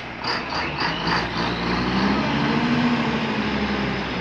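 Diesel engine of a loaded log truck working at low speed, its note rising slightly and falling back around the middle, with a quick rattle of evenly spaced pulses in the first second or so.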